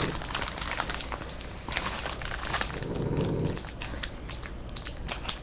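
Foil trading-card pack wrappers crinkling and cards being shuffled and restacked by hand: a rapid run of small crackles and clicks, with a brief lower-pitched sound about three seconds in.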